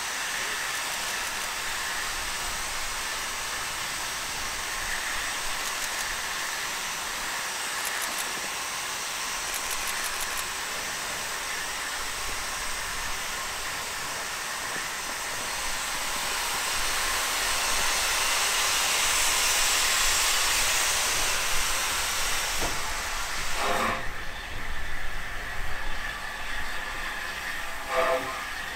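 BR Standard Class 4 4-6-0 steam locomotive hissing steam steadily as it moves slowly. The hiss swells in the middle and cuts off suddenly about three-quarters of the way through, followed by a few short, irregular sounds.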